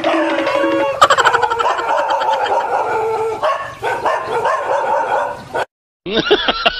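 A dog barking and yelping, its pitched cries wavering up and down. They break off in a sudden moment of silence a little before the end, followed by a different wobbling, sound-effect-like noise.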